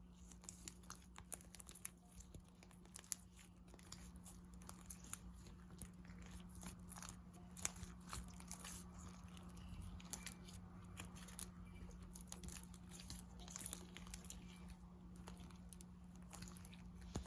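Clear slime being kneaded and stretched by hand with glitter worked in, giving a run of small sticky clicks and crackles throughout, over a faint steady hum.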